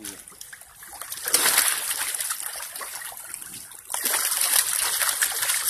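A packed crowd of catfish thrashing and splashing at the water's surface, a busy wet spatter of slaps and sloshes. It swells about a second in and jumps louder near four seconds in.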